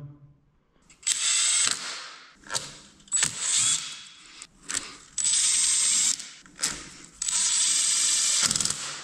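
Power drill-driver driving screws in, running in about seven short bursts of whirring with a high whine, the longer runs lasting about a second.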